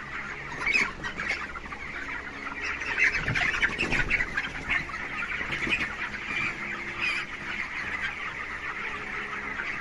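A large flock of 25-day-old broiler chickens in a shed, clucking and cheeping continuously with many overlapping short calls.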